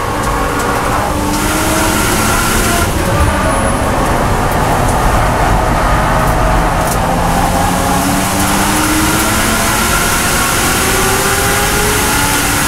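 BMW M240i Racing cup car's turbocharged straight-six, heard from inside the cabin over road and wind noise. The engine note falls as the car slows in fourth gear off the throttle, then rises steadily under full throttle from about eight seconds in.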